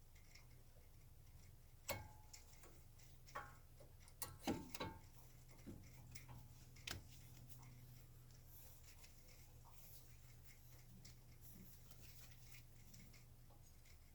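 A handful of sharp metallic clicks and knocks from hand tools and parts being handled during brake work, bunched in the first half, over a faint steady low hum.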